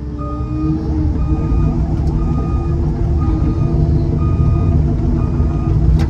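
Heavy equipment's engine running under load, with its backup alarm beeping about once a second as the machine reverses.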